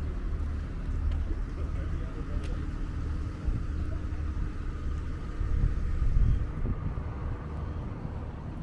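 City street ambience dominated by a steady low rumble of road traffic, swelling a little about two-thirds of the way through.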